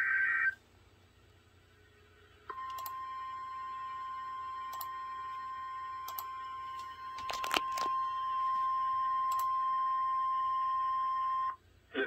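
NOAA Weather Radio warning alarm tone: a single steady beep near 1,000 Hz, held for about nine seconds after a couple of seconds of near quiet, then cut off abruptly. It signals that a warning broadcast is about to follow. It opens with a half-second burst of digital data tones, and faint clicks are scattered through the tone.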